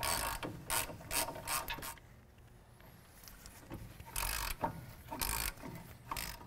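A hand ratchet clicking as a 21 mm socket backs out the brake caliper carrier bolts. There is a run of quick clicks over the first two seconds, a pause, then two short spells of ratcheting about a second apart.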